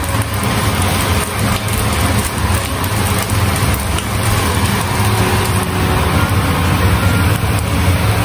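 Pieces of rice-and-egg pancake with diced luncheon meat sizzling steadily as they fry in oil in a non-stick pan, with a wooden spatula scraping and pushing them about. A steady low hum runs underneath.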